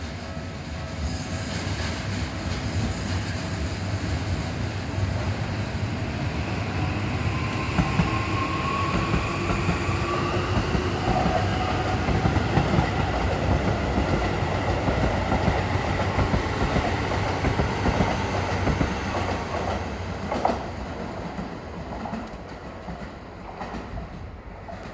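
Toei Asakusa Line 5500-series electric train climbing and accelerating past a level crossing: a heavy rumble with wheels clattering over rail joints and a motor whine that rises in pitch as it speeds up. It fades away near the end.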